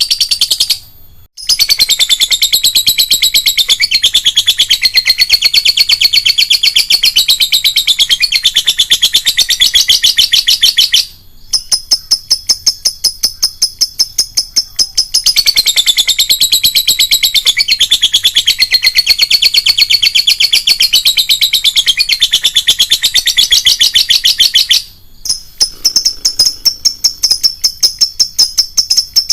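Lovebird singing a long, very fast chattering trill, the prized "ngekek panjang". It runs unbroken for many seconds at a time, with short breaks about a second in, near eleven seconds and near twenty-five seconds, each followed by a thinner, higher repeated note.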